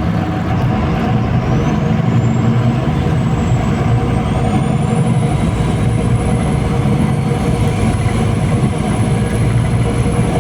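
Cabin sound of a MAZ-203 city bus under way: steady diesel engine and road rumble, with a thin high whine that rises over the first few seconds, holds, and falls away near the end.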